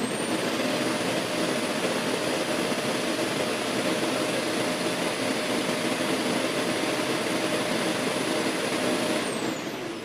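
Dreame Z10 Pro's self-emptying base running its suction motor to pull dust out of the docked robot's bin: a steady rush of air with a high whine. Near the end the whine falls in pitch as the motor winds down.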